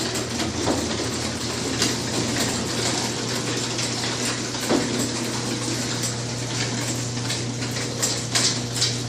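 Chain-drive garage door opener running as it lowers the door: a steady motor hum under a continuous rushing rattle.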